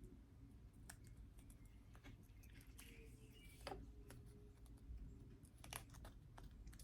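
Near silence with faint, scattered small clicks and taps, about eight or nine, from hands working slide tape onto a G10 shield fidget slider.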